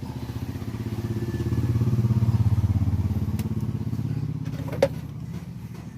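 A vehicle engine passing by with a fast, even pulse, growing louder then fading away. A single sharp clink about five seconds in.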